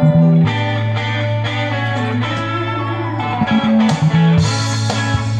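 Instrumental music from a recorded backing track: plucked notes over a sustained bass line, with the bass note changing about half a second in and again near the end.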